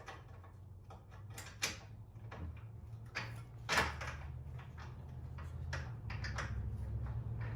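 Metal suspension parts knocking and clanking as a lower control arm is worked and tapped into its mount, a scatter of separate knocks with the sharpest about four seconds in and a run of small clicks near the end. A low steady hum runs underneath.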